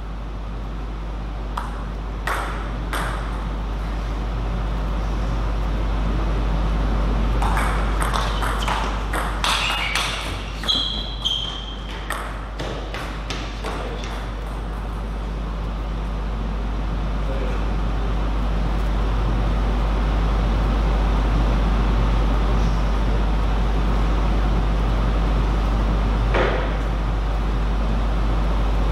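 Table tennis ball clicking: a few bounces before the serve, then a rally of quick hits off bats and the table, with a brief high squeak in the middle of it. A steady low hum runs underneath and slowly grows louder.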